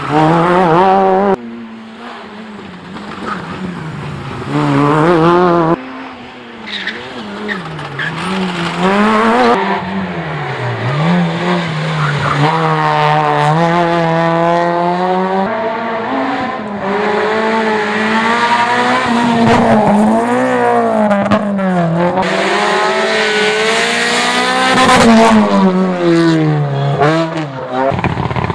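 Rally cars, the first a Peugeot 106 S16, climbing a hillclimb course at full throttle, one after another. The engines rev high, drop for gear changes and corners, then climb again. The sound cuts abruptly from one car to the next.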